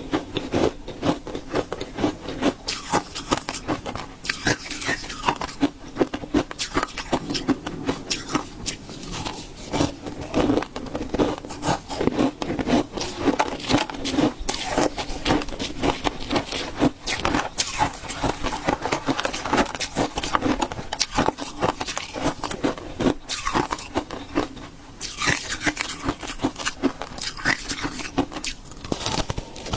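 Ice being bitten and chewed close to the microphone: a steady run of quick, crackly crunches.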